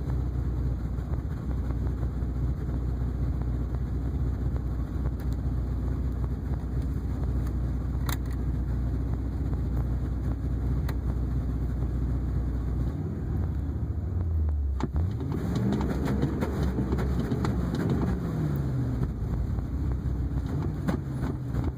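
Ford 5.4L V8 pickup engine pulling at full throttle with a steady low drone. About two-thirds of the way through the note breaks off sharply, then rises and falls in pitch. The truck is being tested for a fuel-pressure-related loss of power and misfire, and on this run the engine keeps pulling without dying.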